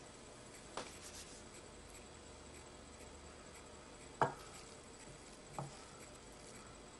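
Hands working stuffing in a glass Pyrex measuring jug: three light knocks against the glass, the sharpest about four seconds in, over faint room tone.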